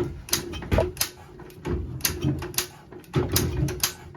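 JAP 5 single-cylinder engine of a 1947 Clifford rotovator being pulled over by hand to start it, about three pulls with clicks and knocks as it turns over, not yet firing.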